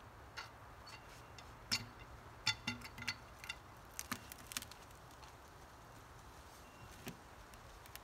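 A scatter of sharp knocks and clicks, about a dozen, most of them bunched in the first half, with one more near the end, over a faint low hum.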